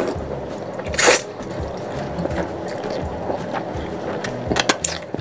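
A person slurping rice noodles off chopsticks: one loud slurp about a second in, then a quick run of wet slurps near the end.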